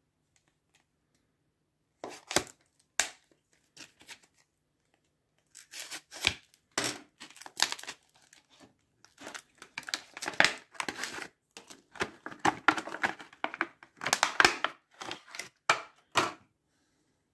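Stiff clear plastic blister pack being slit with a utility knife and pried apart by hand: irregular crackling and crinkling of hard plastic. It starts about two seconds in and grows denser in the second half.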